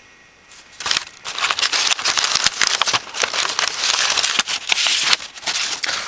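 Paper rustling and crinkling as an envelope and card are pulled out among packing paper. It starts about a second in and goes on as a dense crackle.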